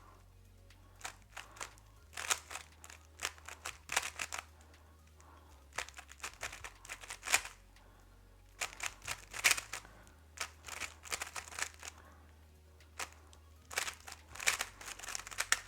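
A 3x3 speed cube being turned fast: quick runs of plastic clicking and clacking, broken by short pauses of about a second or two.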